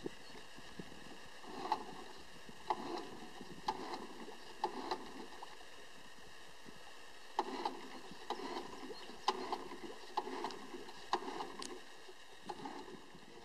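Faint, irregular knocks and splashes from a small open rowboat: oars knocking in the rowlocks and dipping in the water, with a pause in the middle.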